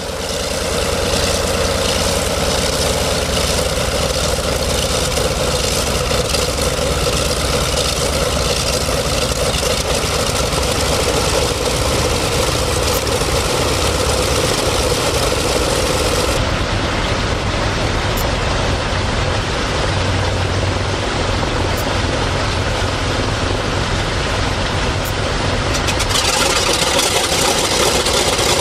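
Douglas DC-6's Pratt & Whitney R-2800 radial piston engines running steadily on the ground, a loud, continuous rumble with propeller noise.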